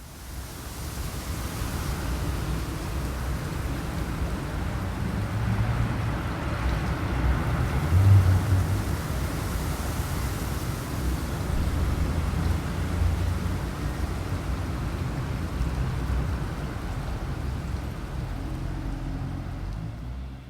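Gusty wind blowing, with a deep uneven rumble underneath that swells and eases. The strongest gust comes about eight seconds in.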